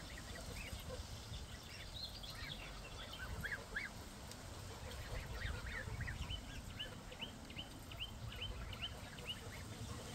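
Young domestic geese giving high, short peeping calls: scattered at first, then a quick run of repeated peeps, about four a second, in the second half.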